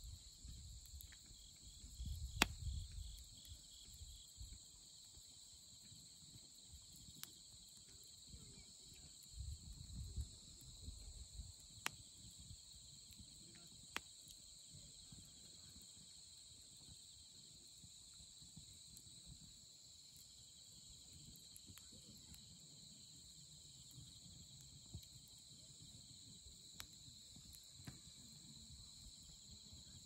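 A steady, fairly loud chorus of night insects, with a wood campfire crackling and giving a sharp pop from the burning firewood every few seconds.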